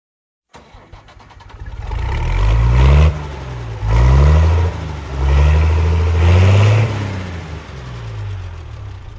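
An engine starting up and revving several times, its pitch rising with each rev, then easing back toward idle.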